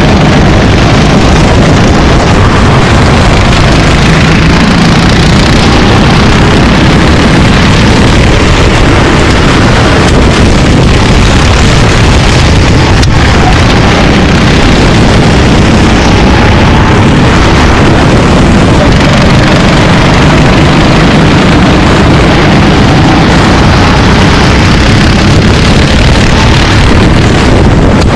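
Racing kart engine running continuously at speed, loud and even, with wind buffeting the microphone.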